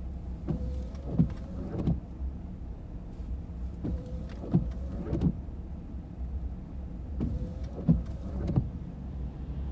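Windshield wipers sweeping snow off the glass, heard from inside the car over the steady low rumble of the idling engine. Each sweep gives a faint squeak and two or three short knocks, repeating about every three and a half seconds.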